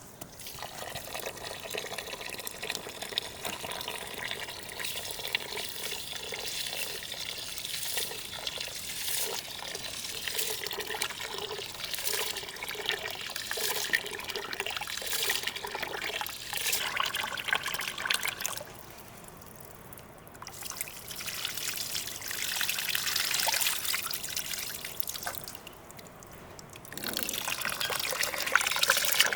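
Water trickling and pouring, with small splashes, as when something is rinsed under running water, with two short pauses.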